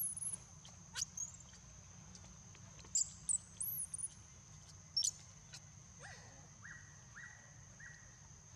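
Baby macaque screaming: a string of short, shrill squeals that swoop up and down in pitch, over the first five seconds or so.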